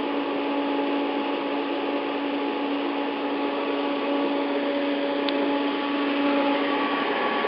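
Steady hum with fan-like noise from a switched-on TIG welding power source; the main hum stops about seven seconds in.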